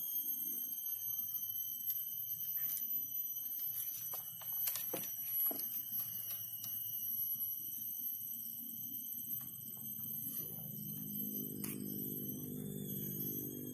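A steady, high-pitched, alarm-like ringing made of several tones, with a few soft clicks about five seconds in. Low background music comes in about ten seconds in.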